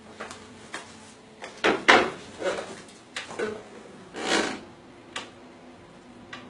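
Objects being handled: irregular knocks and clicks, the loudest about two seconds in, and a short scraping swish a little past four seconds.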